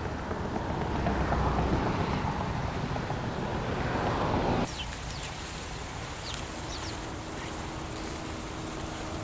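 A steady rushing noise like wind swells, then cuts off abruptly about four and a half seconds in. It gives way to quieter ambience with a few short, high chirps and a faint steady low hum.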